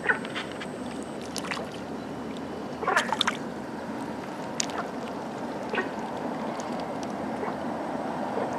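A hooked crucian carp splashing at the water surface as it is played in, a few short sharp splashes with the loudest cluster about three seconds in, over steady background noise.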